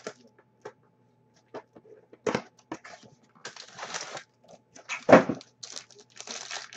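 Crinkling and rustling of a trading-card pack wrapper being handled, with scattered light clicks at first and a loud knock about five seconds in.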